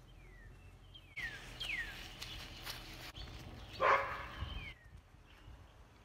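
A dog barking once, loudest about four seconds in, amid several short, high calls that fall in pitch.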